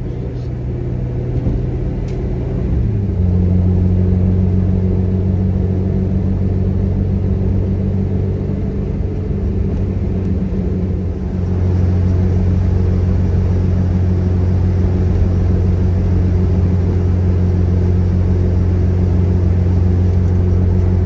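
Car engine and road noise while driving, a steady low drone that shifts and rises in level about three seconds in, and again about halfway through.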